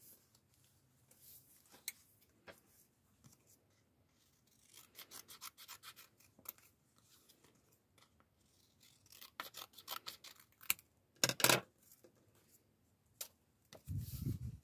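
Scissors snipping through a printed photo in two quick runs of short crisp cuts, with paper rubbing and rustling as the prints are handled; a louder brief scrape about 11 seconds in and a low bump near the end.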